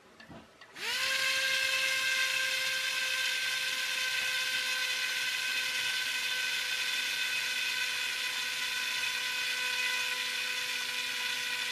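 Small 3.7-volt coreless electric motor driving a plastic propeller: it spins up about a second in, runs at a steady high whine for about ten seconds, and starts to wind down at the very end as the 555 timer circuit cuts its power.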